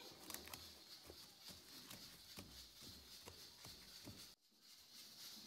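Faint crinkling and crackling of plastic cling film as it is peeled off a glass bowl of dough, a scatter of small irregular clicks.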